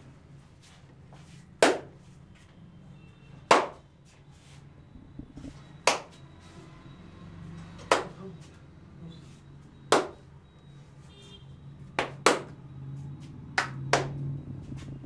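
Hand claps and slaps of a tapping-clapping head massage: five sharp strokes about two seconds apart, then two quick double strokes near the end.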